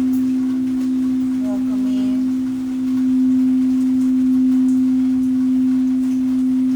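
Singing bowl sounding a sustained low tone that swells and eases gently in waves.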